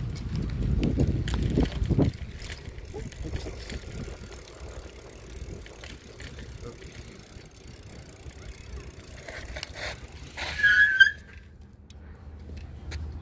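Bicycle rolling over paving, with low rumble and wind noise on a camera mounted to the bike, then a short high brake squeal about ten seconds in as the bike stops.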